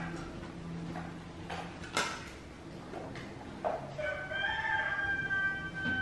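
A rooster crows once, a long drawn-out call beginning about four seconds in. Before it come a few light knocks as a small plastic bottle is knocked across the tiled floor.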